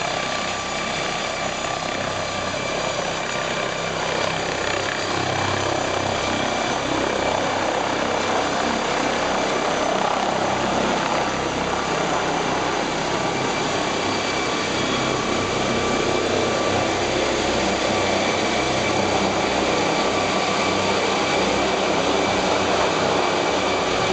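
MD902 Explorer NOTAR helicopter's twin turbine engines whining steadily, over the noise of its main rotor, as it lifts off and climbs overhead. It grows gradually louder.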